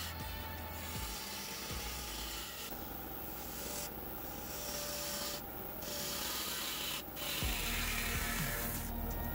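Bowl gouge cutting a spinning silver maple blank on a wood lathe: a steady scraping noise of shavings peeling off, which stops briefly about six times as the gouge lifts off the wood.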